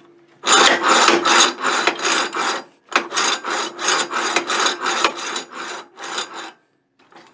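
The movable steel vise jaw of a 7x12 horizontal bandsaw is slid rapidly back and forth by hand on the cast-iron vise bed. It makes a rhythmic metal-on-metal scraping at about three to four strokes a second, with a short break about three seconds in, and stops near the end.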